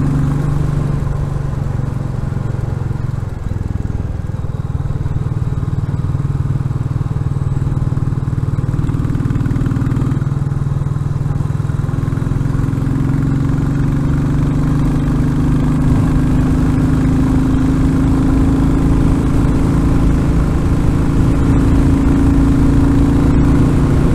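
Royal Enfield Classic 350's single-cylinder engine running steadily while riding along. Its pitch dips briefly about three seconds in, then climbs slowly over the second half. Wind buffets the microphone throughout.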